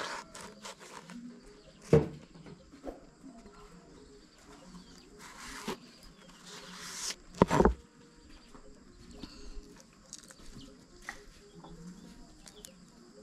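Kitchen knife slicing a red chili pepper on a plastic cutting board: light taps and scrapes, with a sharp knock about two seconds in and a louder double knock past the middle.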